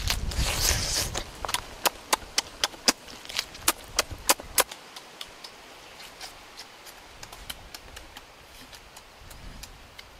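Close-up eating sounds of a person biting and chewing roasted duck: a run of sharp wet smacks and clicks, several a second, with a longer noisy bite near the start. After about four and a half seconds they thin out to a few faint clicks.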